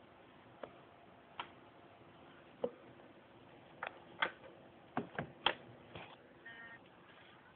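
Hard drive inside a LaCie LaCinema Classic clicking: sharp, irregular clicks that come faster after about four seconds, with a short high beep near the end. The uploader takes this noise for a failure of the drive's read/write heads, with the disk not detected.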